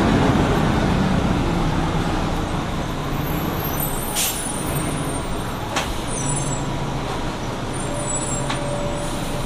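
Orion V CNG bus's Detroit Diesel Series 50G four-cylinder natural-gas engine running with a steady low hum that eases off over the first couple of seconds. A few sharp clicks or rattles sound over it.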